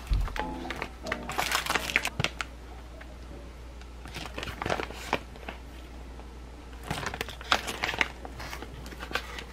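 Plastic packaging crinkling in bursts as a clear zip-top plastic pouch of gel pens is pulled from a padded mailer and handled, over quiet background music.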